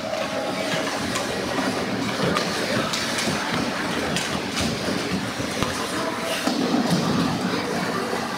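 Ice hockey play heard from rinkside: skates scraping and carving the ice under a steady rink din, with sticks and puck clacking now and then.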